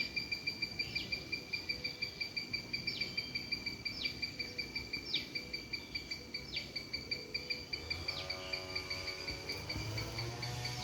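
A steady, rapidly pulsing high trill, insect-like, with short falling chirps about once a second over it. Music comes in near the end.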